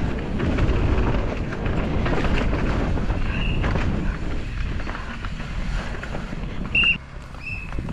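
Wind rushing over a camera microphone at speed on a downhill mountain-bike run, with a heavy low rumble and rattle from the bike on the rough track. A few short high-pitched squeals sound, once midway and twice near the end.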